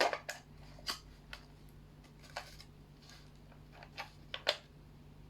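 Scattered small plastic clicks and handling taps as a 9V battery is snapped onto its connector and fitted into a toy remote control, a few single clicks spread out with quiet between them.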